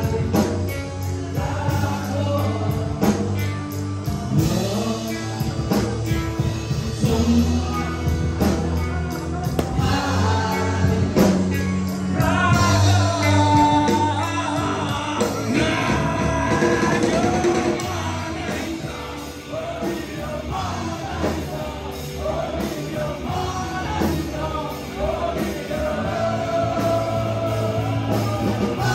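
Live rock band playing a song: male vocals over electric guitars, bass and a drum kit, amplified through a PA.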